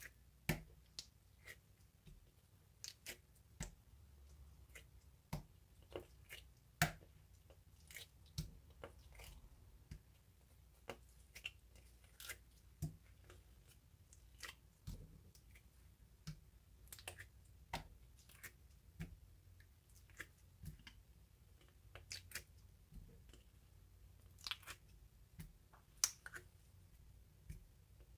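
Slime being squished and folded by hand: irregular sharp clicks and pops, quiet between them.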